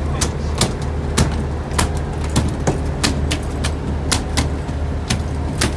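Fishing boat's engine running with a steady low hum, under sharp, irregular clicks and knocks, about two to three a second.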